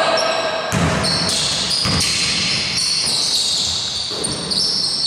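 Basketball bouncing a few times on a hardwood court as it is dribbled, with frequent high sneaker squeaks on the floor.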